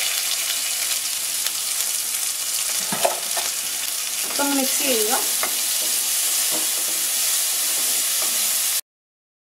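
Crushed shallots, garlic and dried red chillies with fresh curry leaves sizzling in hot coconut oil in a wok, stirred with a wooden spatula. The sizzle cuts off suddenly near the end.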